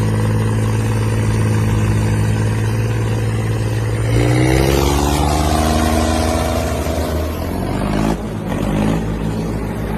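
Tractor's diesel engine running hard under load while pulling. About four seconds in the revs climb, and near the end the pitch dips and rises again.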